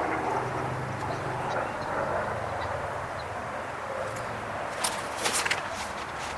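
Steady outdoor background rumble with a few sharp clicks a little before the end.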